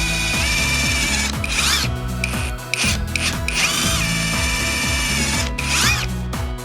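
Cordless drill driver running in bursts, its motor whine stopping and spinning back up several times as the trigger is released and pressed again while drilling. Background music plays underneath.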